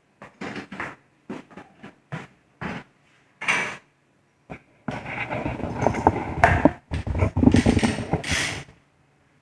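Metal tools being handled while a pipe vise and a ratchet pipe threader are set up for threading metal conduit: a string of separate knocks and clanks, then about four seconds of denser metallic rattling and clicking that stops near the end.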